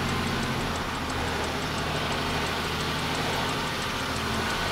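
Semi truck's diesel engine running steadily at low speed, heard from inside the cab, with a faint fast ticking over it.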